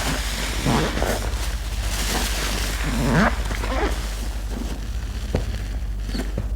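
A sponge squeezed and worked through thick laundry-soap lather, with wet squelches (two stronger ones about a second and three seconds in) over a steady hiss, plus a few sharp clicks near the end.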